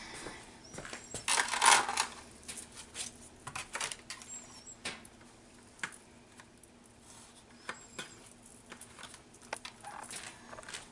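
Dry lasagna noodle sheets clicking and scraping as they are laid by hand into a disposable aluminium foil pan, with a series of light taps and a louder rustling clatter about a second in.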